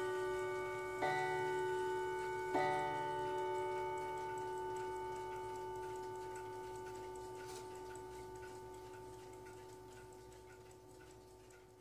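Howard Miller Worthington mantel clock striking the last two of its twelve hour strokes, about a second and a half apart. The struck tone rings on and dies away slowly. Underneath, its balance-wheel movement ticks quickly and evenly.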